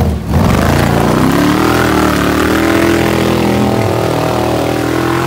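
Off-road buggy's V8 engine revving hard under load. The revs dip briefly near the start, climb over the next couple of seconds, then hold high and steady as the buggy digs into a steep mud bank.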